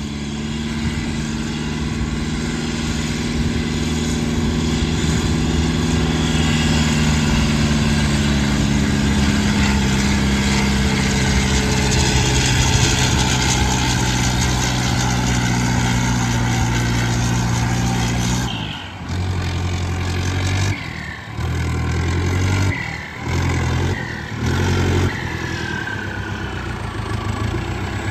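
Turbocharged Powertrac tractor's diesel engine running steadily under load, pulling a disc harrow in high second gear. From about two-thirds of the way through, the sound drops away and comes back several times.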